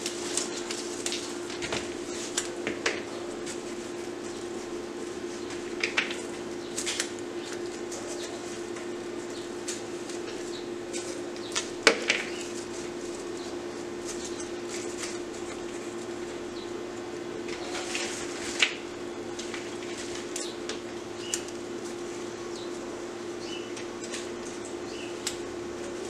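Rose stems and leaves rustling and clicking as they are handled and pushed into floral foam: scattered short, sharp clicks and rustles, the loudest about twelve seconds in and again near eighteen seconds. Under them runs a steady background hum.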